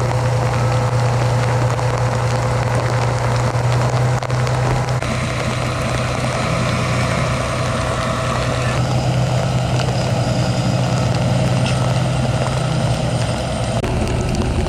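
Large truck engine idling steadily, a loud low hum that holds throughout.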